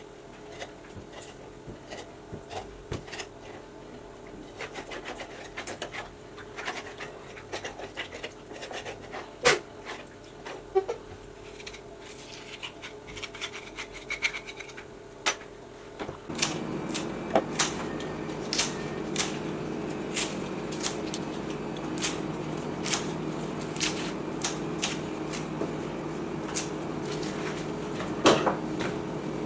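Cooking preparation: scattered sharp clicks and knocks of kitchen utensils. About halfway through, a steady low hum joins in and continues.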